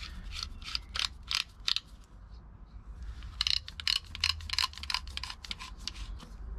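Rapid plastic clicking from the grey screw-on rear housing and cable gland of a blue 16 A hook-up plug being twisted along an orange mains cable and tightened to seal it. The clicks come in two runs, with a short pause about two seconds in.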